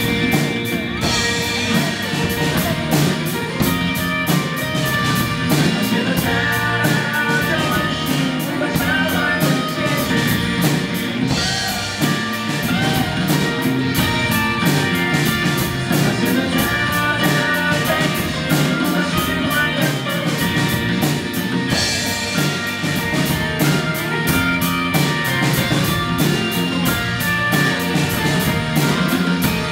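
Rock music with a drum kit keeping a steady, driving cymbal beat over electric guitar and bass, without vocals.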